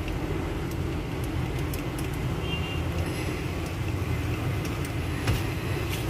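Steady low rumble of motor vehicle traffic, with a few faint clicks.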